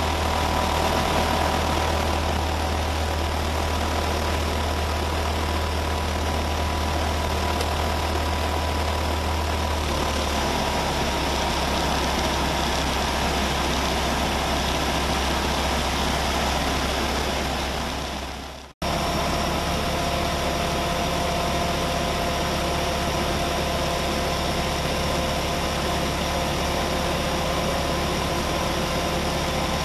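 Diamond HK36 Super Dimona motor glider's piston engine and propeller running at a steady speed, the pitch dropping slightly about ten seconds in. A little past halfway the sound fades and cuts off suddenly, then the engine is heard running steadily again.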